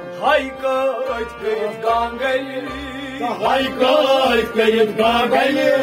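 Kashmiri Sufi devotional song: a man singing a wavering, ornamented melody to harmonium, with a clay goblet drum (tumbaknari) keeping a steady low beat.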